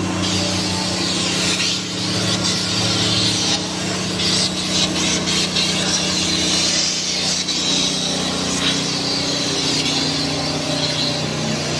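Compressed-air paint spray gun hissing in long spurts with brief breaks as paint is sprayed onto a truck cab, over a steady low machine hum.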